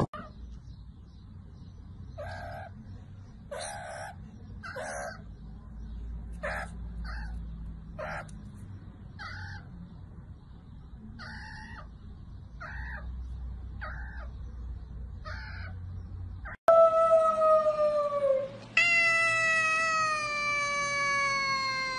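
A small animal's short calls, repeated about once a second. After a sudden cut, a kitten gives two long, loud meows, each falling slowly in pitch.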